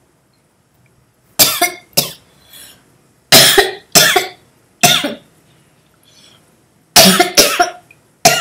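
A woman coughing into her fist: a run of about eight short, loud coughs in three bouts, starting about a second and a half in, with short pauses between the bouts.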